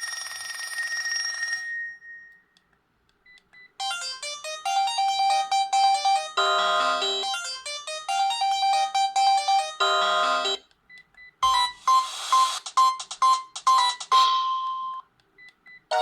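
Sharp GX17 mobile phone playing its ringtones one after another: a phone-bell-style ring ends about two seconds in, then comes a short melodic tune, and then another tune with quick repeated notes, with brief pauses between them.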